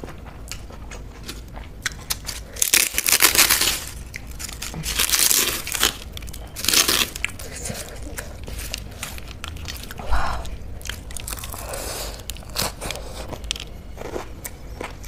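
Close-up eating sounds: chewing mouthfuls of soy paneer bhurji and rice, with the wet squish of fingers mixing the food on a metal plate. The loudest bursts come in a cluster about three to seven seconds in, with smaller ones later.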